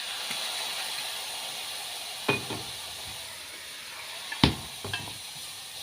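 Bacon and red wine sizzling in a hot frying pan, the hiss slowly easing off. A few sharp knocks come in, the loudest about four and a half seconds in.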